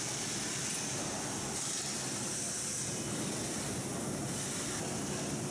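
Steady hiss of factory-floor background noise, with no distinct clanks or tool sounds standing out.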